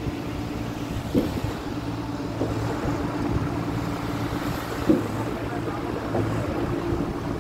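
An engine running steadily, its low hum swelling and fading, with a few sharp knocks over it.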